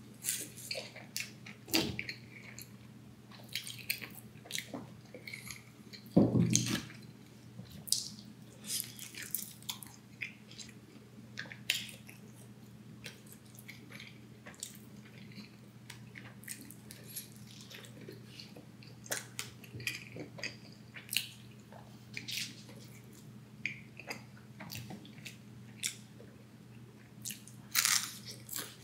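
A person eating: wet chewing with lip smacks and small mouth clicks at an irregular pace, over a faint steady low hum. One louder dull thud comes about six seconds in.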